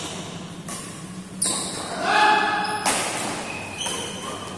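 Badminton rally: rackets strike the shuttlecock about four times, roughly a second apart, each hit sharp with an echo in the large hall. A brief high-pitched squeaky tone sounds between hits near the middle.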